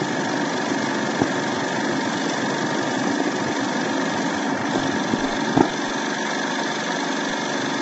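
A small machine running steadily with a continuous mechanical whir, and a brief knock about five and a half seconds in.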